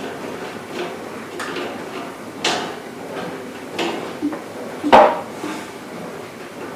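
A series of separate knocks and clunks from metal range hood housing parts being handled, the loudest about five seconds in, with a short ring after it.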